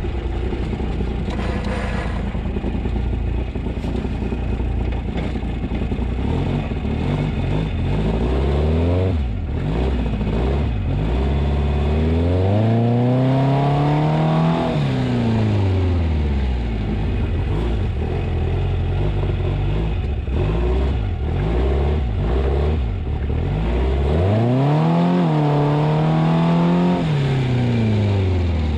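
VW engine of a rock crawler buggy accelerating hard and easing off twice, its pitch climbing and then falling each time; the second pull holds at the top for a couple of seconds. The engine is still cold, and the owner says it bogs down slightly at tip-in.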